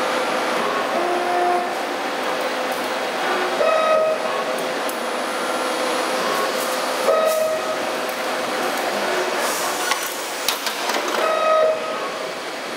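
Simco CNC-1350 CNC spring forming machine running through its cycles: a steady mechanical noise, with a short whine from the axis drives about every three and a half seconds and a few sharp clicks of the forming tools a little before the end.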